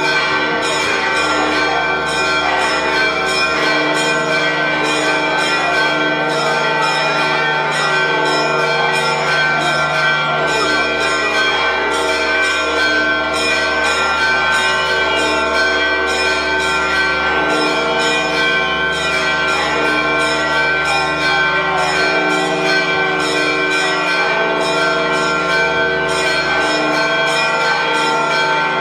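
Church bells of the Holy Sepulchre pealing continuously: rapid strikes, about three a second, over a steady wash of ringing tones. This is the peal that greets the Holy Fire on Holy Saturday.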